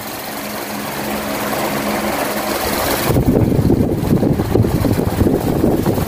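Electric pedestal fan running close up: a steady motor hum under a rush of moving air. About three seconds in, it turns into a rougher, louder low rumble as fan air buffets the microphone.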